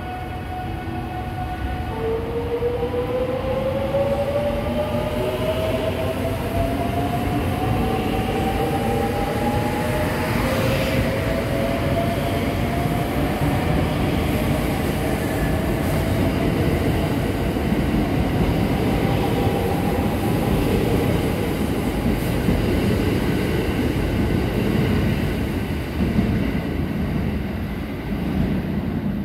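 JR West 681-series and 683-series electric express train pulling away: a whine from the inverters and traction motors starts about two seconds in and rises steadily in pitch as the train gathers speed, over rumbling wheel and rail noise from the cars passing. The noise eases near the end as the last car leaves.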